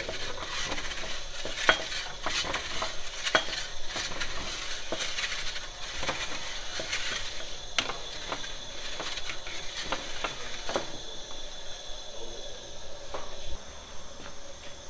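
Small stones clicking and rattling as a long-handled metal peel is pushed and dragged over the hot pebble bed of a sangak bread oven, over the steady hiss of the oven's flame. The clatter thins out after about eleven seconds.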